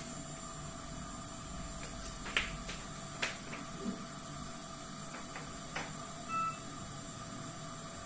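Steady hiss of a Philips Trilogy EV300 ventilator running, with about four sharp clicks and one short electronic beep about six seconds in.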